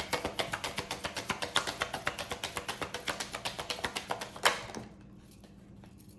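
A deck of tarot cards being shuffled by hand: a fast, even run of light card clicks, about eight to ten a second, fading off, with one sharper snap about four and a half seconds in.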